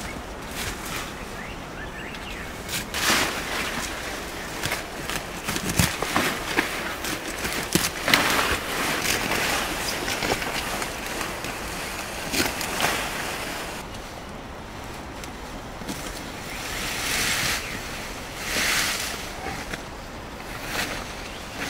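Leafy vines and grass rustling and swishing as they are pulled down and gathered by hand, coming in repeated bursts of a second or two, with a few sharp cracks.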